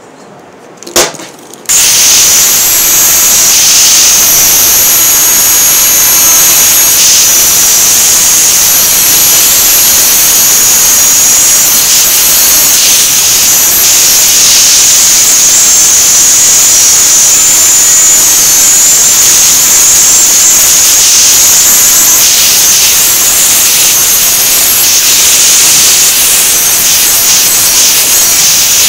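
A sharp click about a second in, then an electric angle grinder starts and runs at full speed with a steady high whine, its disc grinding against the steel jaws of a pair of pliers.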